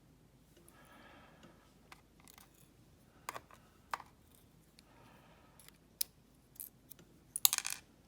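Small metal clicks and taps of tweezers, pins and springs being handled while reloading a pin-tumbler lock core. The clicks are scattered and sharp, with a quick cluster of several near the end.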